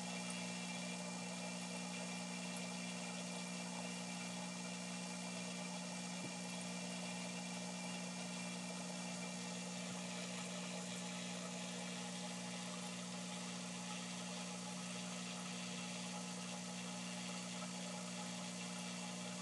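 Steady low motor hum with an even hiss, unchanging throughout.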